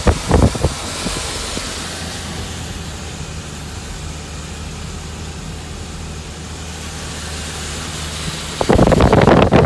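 Steady road noise and low engine hum inside a moving car on a wet road. Wind buffets the microphone loudly about a second before the end, and briefly at the start, as the phone is held toward the open side window.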